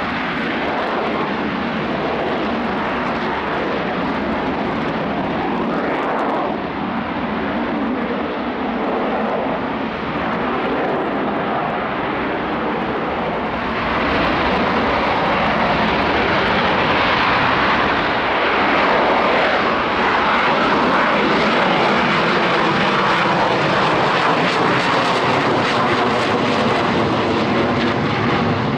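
Jet engine noise from a jump jet in display flight, running steadily and growing louder about halfway through.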